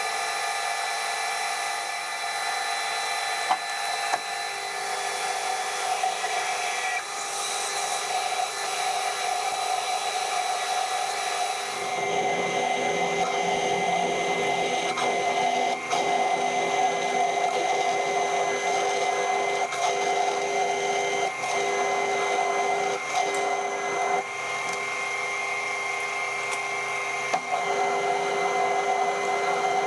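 Metal lathe running with the steady whine of its drive, a carbide insert turning the outside of a round metal bar. About twelve seconds in the sound changes as a large twist drill in the tailstock bores into the spinning bar, with occasional ticks from the cutting.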